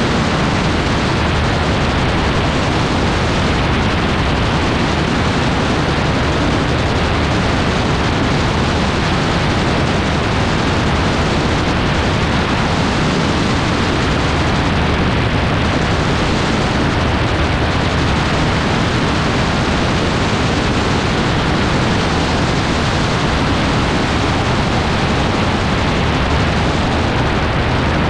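Loud, steady rush of wind on the microphone over the drone of an AutoGyro MTOfree gyroplane's engine and propeller in cruising flight.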